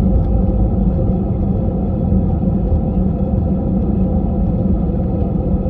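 Steady low rumble with a constant hum inside a jet airliner's cabin: engine and air-system noise.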